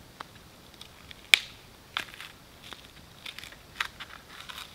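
Knife whittling a stick of wood: irregular short scraping strokes and sharp cracks, the loudest crack about a second and a half in.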